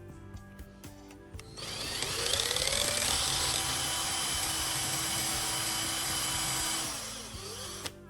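Small electric power tool starting up about a second and a half in with a rising whine, running steadily for about five seconds, then stopping near the end, over background music.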